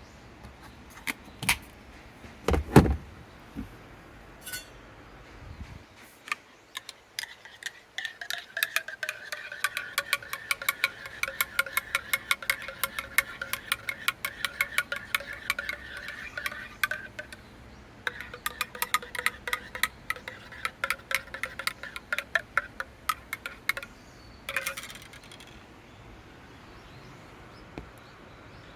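A spoon stirring in a cup, clinking rapidly against its sides with a ringing tone, in two long spells with a short break between. A few knocks and one heavier thump come first.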